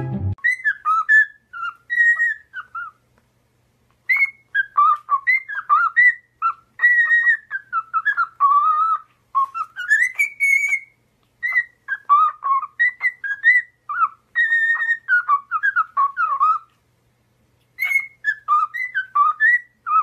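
A parrot whistling: phrases of clear whistled notes that glide up and down, broken by two short pauses.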